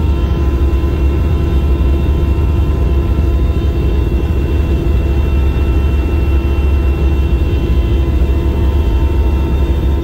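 Steady drone of an aircraft heard from inside the cabin: a deep, even rumble with several steady hum tones over it.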